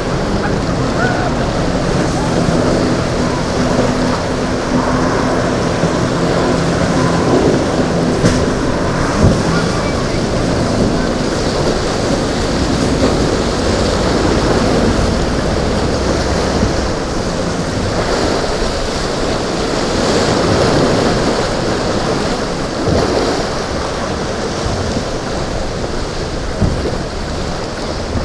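Waves and surf washing through the inlet, with wind buffeting the microphone; a boat's engine drones steadily for the first several seconds, then fades into the water noise.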